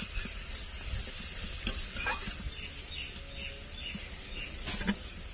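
Spiced masala paste sizzling in oil in a steel kadai while it is stir-fried down (koshano). A metal spatula scrapes and knocks against the pan a few times. The sizzle is strongest at first and dies down after about two seconds.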